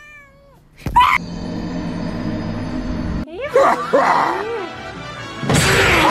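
A fast meme edit: a short cat meow, then a sudden loud burst of music about a second in, wavering cries in the middle, and a harsh noisy blast near the end.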